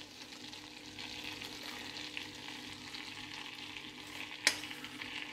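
Melted butter bubbling and sizzling faintly in a small saucepan as spoonfuls of flour go in, the start of a butter-and-flour roux. A spoon taps once sharply about four and a half seconds in.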